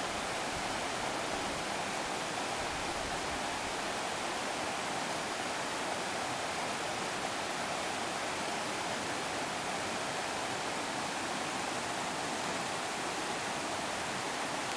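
River rapids tumbling over low rock ledges: a steady, unbroken rush of white water.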